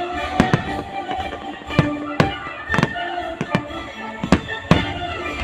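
Fireworks bursting overhead: about ten sharp bangs at uneven intervals, over music playing.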